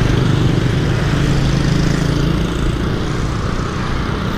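Road traffic noise: a motor vehicle's engine hums close by, strongest in the first half and fading out a little past halfway, over steady traffic noise.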